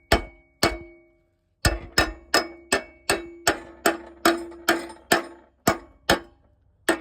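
Hammer striking metal over and over, about two to three blows a second, each blow ringing, with two short pauses. The blows are on a lawn tractor mower deck's seized deck brakes to free them from the blade pulleys.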